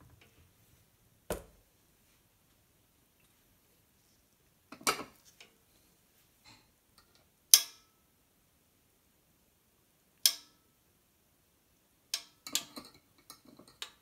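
A metal spoon clinking and tapping against a small dish, in separate sharp strikes a few seconds apart, then a quicker run of small clicks and taps near the end.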